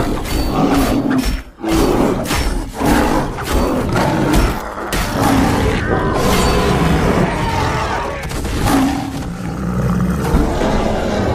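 Loud, layered creature roars and growls from a cave bear sound effect, running almost without a break, with a brief gap about a second and a half in.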